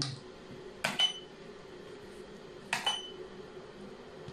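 Xiangqi pieces clacking down on the board: two sharp clicks about a second in and two more near three seconds, each pair with a brief clinking ring, over a faint steady hum.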